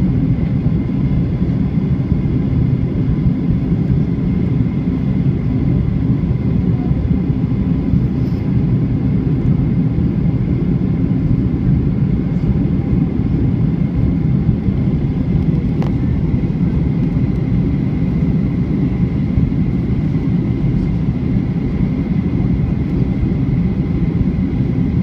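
Boeing 737-800 cabin noise heard from a window seat on approach: a steady, loud roar of engines and airflow with a deep rumble and a faint steady whine.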